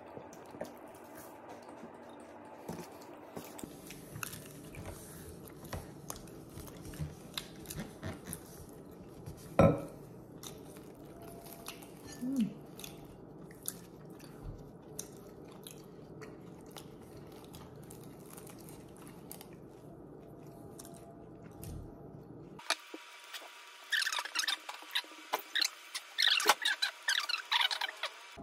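A person chewing and crunching flaky pastry, with crackles of crust as pieces are torn off and bitten; a dense run of crisp crackling near the end.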